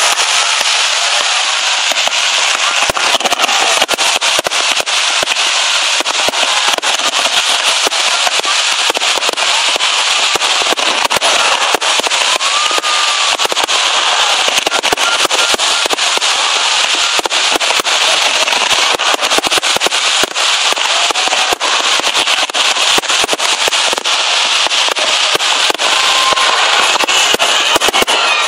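Fireworks display: a dense, continuous crackle of many small reports at a steady loud level, without pause.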